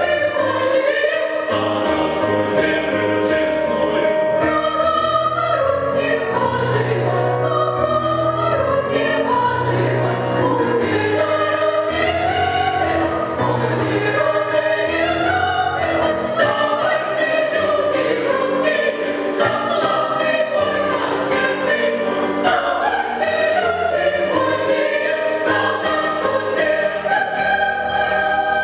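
Mixed choir of women's and men's voices singing together, with sustained notes moving up and down.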